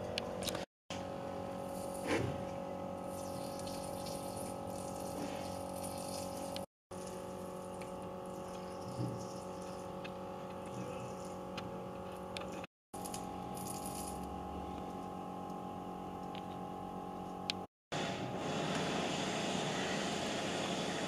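Steady workshop background hum: several steady tones over a faint hiss, with a few faint small clicks. It drops out completely for a moment four times.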